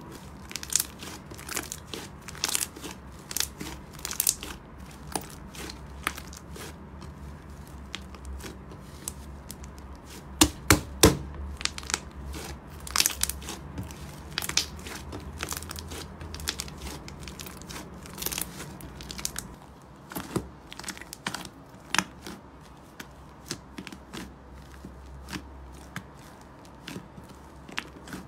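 White fluffy slime being stretched, squeezed and kneaded by hand, crackling and popping in quick sharp clicks with a louder cluster of pops about ten seconds in.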